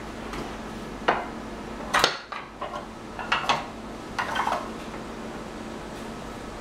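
Oil stones in wooden boxes being handled and stacked on a wooden workbench: a run of wooden knocks and clatters, the sharpest about two seconds in.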